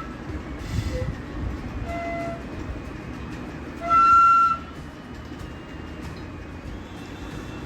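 A steady low rumble with a few faint short tones, then one loud half-second horn-like toot about four seconds in.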